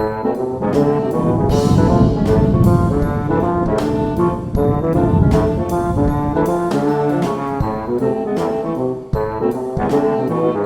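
Upbeat instrumental intro music with brass, trombone and trumpet, over a steady beat.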